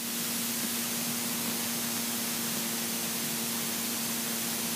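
Robin DR400 light aircraft's engine and propeller running steadily just after takeoff, heard inside the cockpit as a constant hum under a loud even hiss.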